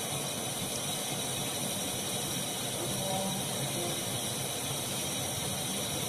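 Steady hiss of background noise, unchanging throughout.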